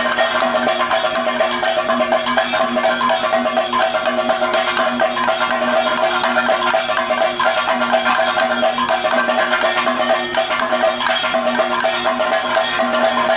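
Kathakali percussion accompaniment without singing: chenda and maddalam drums playing a dense, fast, unbroken pattern, with a steady metallic ringing from the gong and hand cymbals over it.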